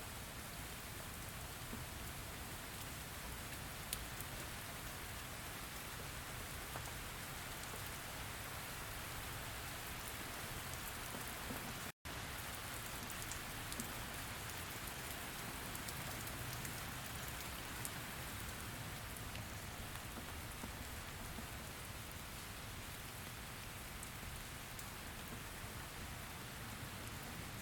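Steady rain falling, with a few sharper drop ticks here and there. The sound cuts out for an instant about twelve seconds in.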